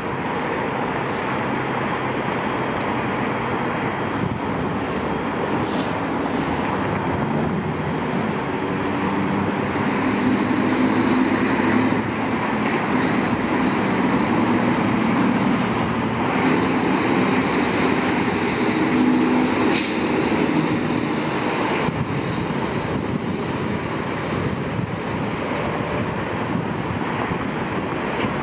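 Road traffic at a busy intersection: a steady rush of passing vehicles with the engine drone of heavy vehicles, which grows louder in the middle. There is a single sharp click about twenty seconds in.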